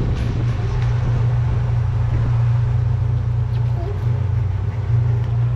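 Twin Vee boat's outboard engine running steadily, a low even drone with wind and water noise over it.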